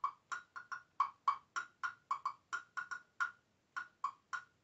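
Torelli Block Bell, a pair of small percussion blocks still in their plastic wrap, tapped in a quick pattern that alternates between the lower-pitched orange block and the higher-pitched yellow one: about four short, ringing strikes a second.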